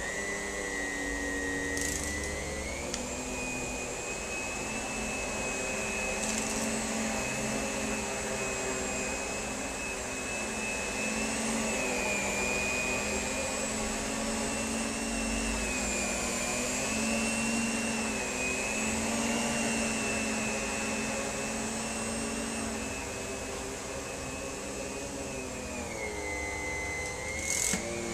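Electrolux vacuum cleaner running with a steady motor whine. The pitch steps up about two seconds in, wavers gently, and drops back near the end, with a few short knocks along the way.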